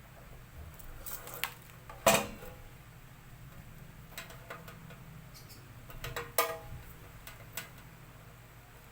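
Sharp clicks and knocks of small hard parts being handled, the loudest about two seconds in and a quick cluster about six seconds in, over a low steady hum.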